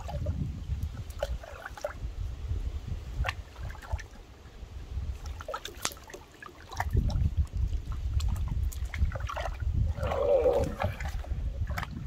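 Water sloshing, splashing and dripping in a plastic washtub as a small puppy is bathed and lifted out streaming water, over a low rumble of wind on the microphone. A brief higher-pitched sound comes about ten seconds in.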